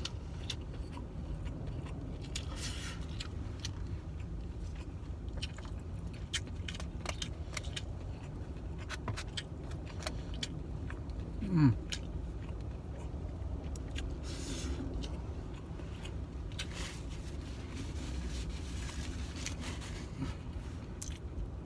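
A man eating: scattered clicks and scrapes of a utensil and food container and quiet chewing, over a steady low rumble. About halfway through he gives a short falling "mm".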